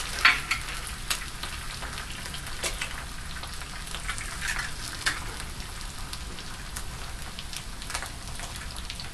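Eggs and bacon frying on a hot soapstone pizza-grill stone, a steady sizzle with scattered sharp crackles and pops.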